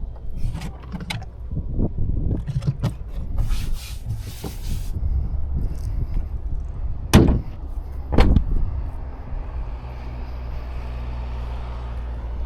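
Clicks and knocks from an electric SUV being handled, with two loud thumps about seven and eight seconds in, then a steady low hum.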